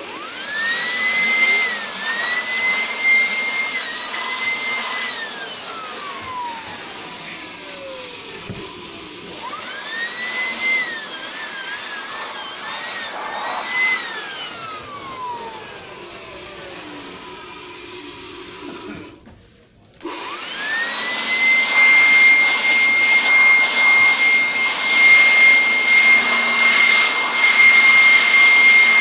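Electric vacuum cleaner motor switched on and off three times: each time its high whine climbs quickly to full speed, then dips and wavers now and then while it runs. The first two runs wind down slowly in a falling whine, and the third and longest run holds steady.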